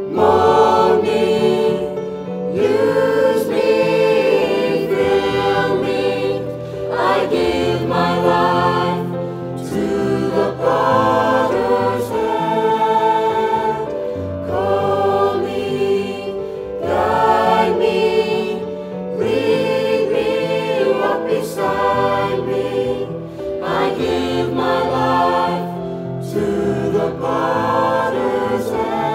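Mixed choir of young men and women singing a sacred song in sustained phrases.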